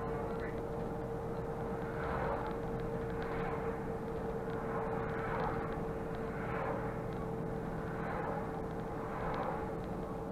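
Mercedes-Benz Conecto city bus driving, heard from the driver's cab: engine and road noise with a steady whine. A rushing noise swells and fades every second or two.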